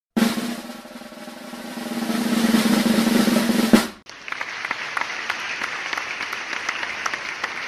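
Drum roll sound effect that builds in loudness for nearly four seconds and ends on a final hit. It is followed by a steady noise full of quick ticks for about four seconds.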